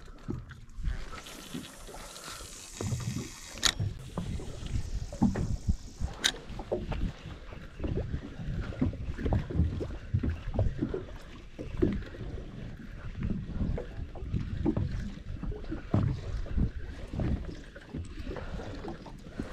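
Small waves lapping and slapping against the hull of a drifting boat, with light wind on the microphone. Two sharp clicks come through, about four seconds in and again about six seconds in.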